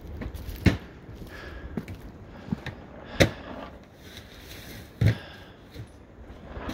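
A few sharp knocks or clicks, three of them louder and spaced a couple of seconds apart, over faint background noise.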